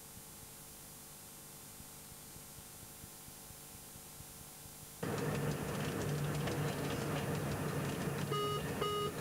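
A faint hiss for about five seconds, then the running noise of an electric train heard from the driver's cab starts abruptly. Near the end the KVB speed-control alarm in the cab gives two short beeps about half a second apart: its repeated warning that the train has passed the second braking curve without the driver braking.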